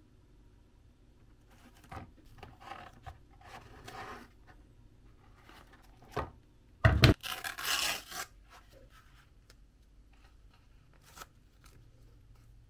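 Cardboard being handled and worked by hand: scattered rubbing and scraping, a sharp knock about seven seconds in followed by a second of rubbing, and a single click near the end.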